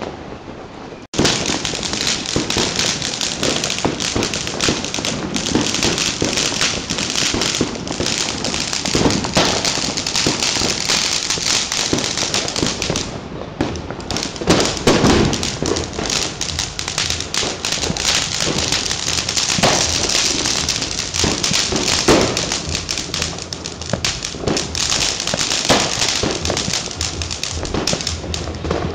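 Many fireworks going off at once: a dense, unbroken crackle of bangs and pops. It drops out for a moment about a second in and eases briefly about halfway through.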